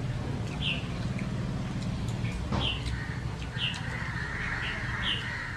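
A bird calling, four short calls spread a second or so apart, over a steady low background hum.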